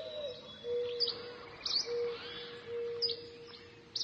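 Birds chirping: short, sharp chirps roughly once a second over a steadier, lower drawn-out note.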